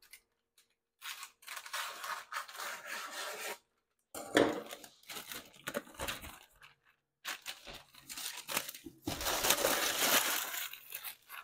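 Parchment paper rustling and crinkling as it is cut to size, in three bursts with short pauses between.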